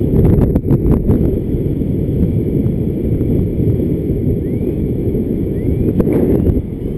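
Airflow in flight under a paraglider buffeting the camera's microphone: a loud, steady wind rumble, with a few sharp clicks in the first second.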